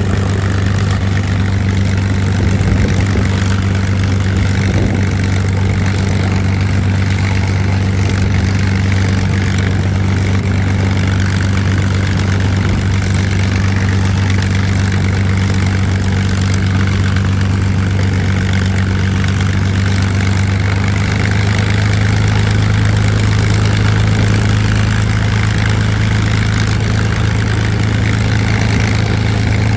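P-51D Mustang's Packard Merlin V-12 engine running at a steady low idle with a deep even drone. About two-thirds of the way in, the engine note shifts and grows slightly louder.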